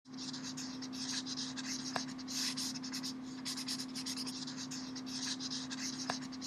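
Marker writing in quick, irregular, scratchy strokes, with a steady low hum beneath.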